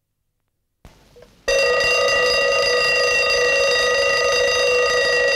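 Westclox Big Ben alarm clock's bell alarm ringing loudly and steadily, starting abruptly about one and a half seconds in.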